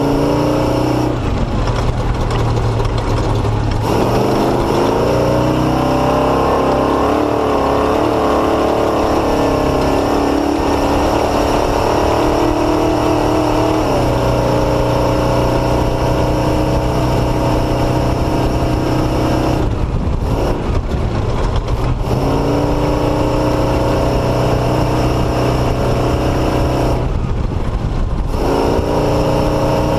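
Motorcycle engine under way, its pitch climbing as it revs up and settling back, with the throttle closing briefly several times, over a steady rush of noise.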